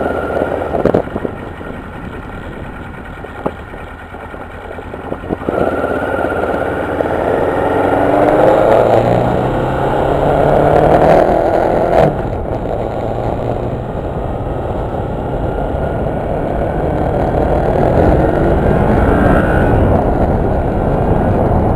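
A vehicle engine running, then pulling away, its pitch rising in steps as it speeds up, getting louder from about five seconds in.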